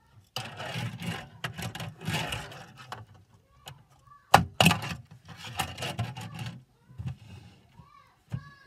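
Tech Deck fingerboard rolling and scraping over a plastic half-pipe ramp, with two sharp clacks of the board striking the ramp about four and a half seconds in.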